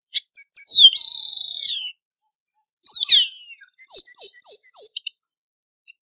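Yellow-hooded blackbird singing: two short notes, then a held note of about a second that drops at its end, a falling note, and a quick run of five repeated short notes.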